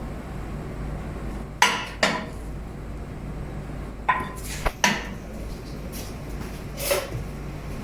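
Kitchen utensils and pans clinking and knocking: a handful of separate sharp clinks, two about a second and a half in, a cluster around four to five seconds in, and one more near the end.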